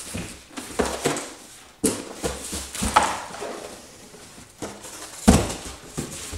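Cardboard boxes being handled: flaps rustling and scraping as an inner box is worked out of a shipping carton, with a sharp thump about five seconds in as a box is set down on the bench.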